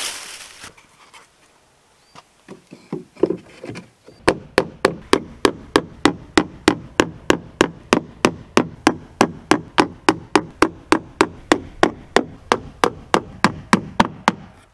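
Hammer striking the wooden roof framing overhead: a few scattered taps, then a steady run of sharp blows at about three or four a second, stopping just before the end.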